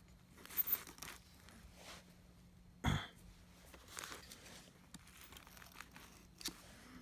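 Hands pulling tangled hair and lint off a vacuum cleaner's brush roll: scattered short rustles and scrapes against the plastic, the loudest about three seconds in.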